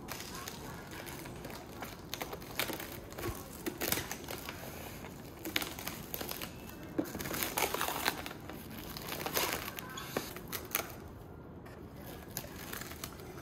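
Plastic cling film crinkling and crackling as it is pulled and peeled off a plastic takeaway tub. The crackles come in irregular runs, busiest through the middle and thinning out near the end.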